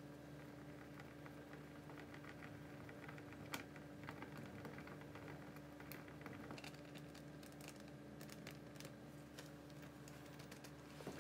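Faint, irregular clicks and taps of a small plastic cup being handled and stirred by gloved hands while a green mixture is mixed, with one sharper click a few seconds in, over a steady low hum.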